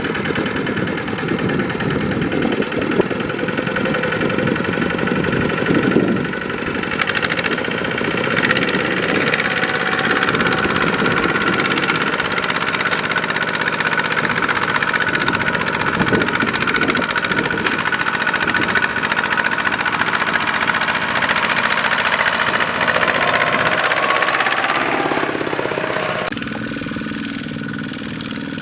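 Kubota single-cylinder diesel tractor engine running steadily. Near the end its note shifts lower and gets a little quieter.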